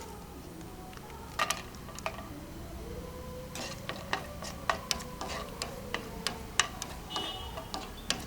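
Onions frying in ghee in a pan, giving irregular sharp crackles and clicks over a faint steady hum.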